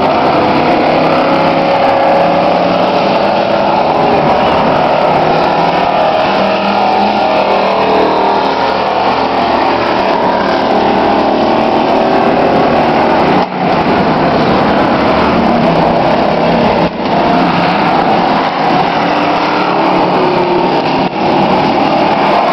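Engines of several demolition-race trucks running and revving together on a speedway track, loud and continuous, their pitches rising and falling as the trucks circle, with a few brief dips in level.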